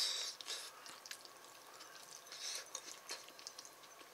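A person eating mapo tofu: a few short hissing mouth sounds, the first at the start, and scattered faint clicks.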